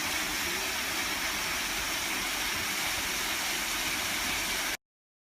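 A steady rushing noise with no distinct tones, cutting off abruptly near the end.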